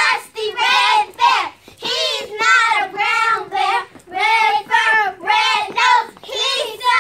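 Young children singing a rhythmic sing-song chant, about two syllables a second on a near-steady pitch.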